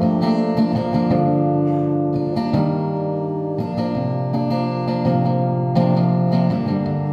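Acoustic guitar strumming chords that change every second or two, in an instrumental break of a song with no voice.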